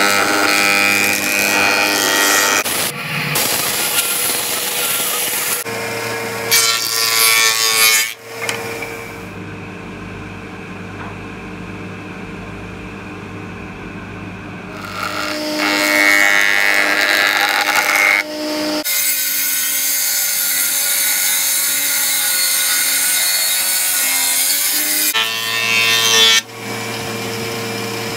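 Stationary woodworking machines running with a steady motor hum, with several louder passes as a jointer's cutterhead planes rough, bark-edged wood slabs. There is a quieter stretch in the middle, where only the running machinery is heard.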